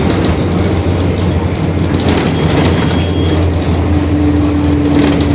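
Mercedes-Benz OF-1721 Bluetec 5 city bus on the move: a steady low diesel drone with body rattles and clicks, and a steady whine that comes in about four seconds in. The whine is the differential's noise, the sign of a worn rear axle.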